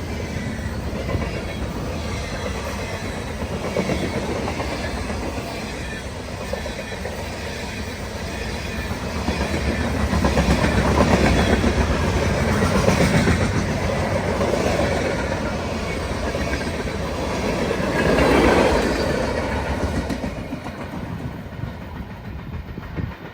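Train rolling past, its cars' wheels clattering over the rail joints in a steady clickety-clack, swelling a couple of times and then fading away near the end.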